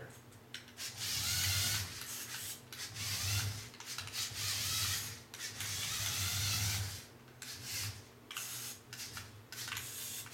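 LEGO Technic RC car's electric motors and gear train whirring with a grainy, grinding edge, in bursts of about a second each and shorter choppy bursts near the end, as the car is driven on low batteries. This is what stalling sounds like: the motors bogging down and cutting out under load.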